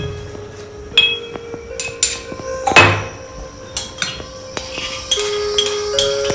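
Fresh ginger being crushed with a pestle in a mortar: irregular sharp knocks with a slight clink, about one or two a second, the loudest about three seconds in.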